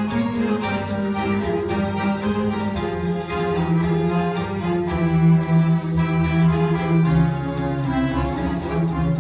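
Live instrumental introduction played mainly on accordion, sustained melodic notes over shifting low chords, before the choir comes in.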